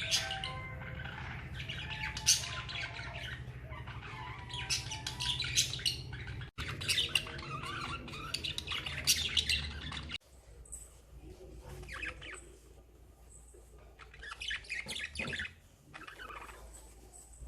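Budgerigars chirping and squawking in repeated busy bursts of chatter, quieter after about ten seconds.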